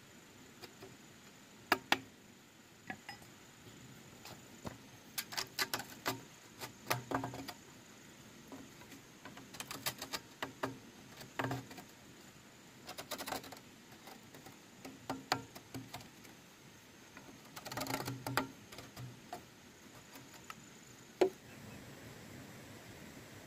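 Irregular light knocks and clatters of hard objects, coming in clusters a few seconds apart, over a faint steady high-pitched tone.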